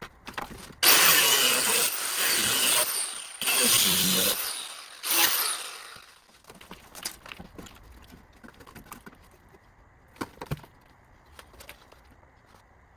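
Angle grinder with a cutting disc slicing through rusty steel body panel in three or four short, loud cuts, the motor's pitch falling as it is let off between them. After that come a few light clicks and knocks of metal being handled.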